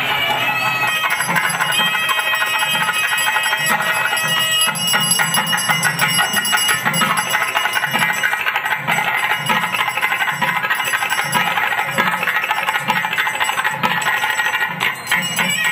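Temple bell rung rapidly and without pause during a Hindu puja, over a steady low beat of about one and a half strokes a second and festival music.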